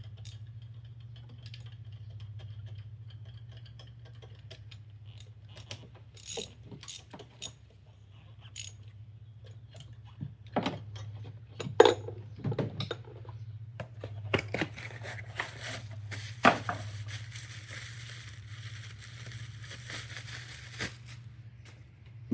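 Hand tools clinking and knocking against metal, then a run of rapid ratchet clicking as a new spark plug is fitted with a spark plug socket and ratchet. A steady low hum sits underneath.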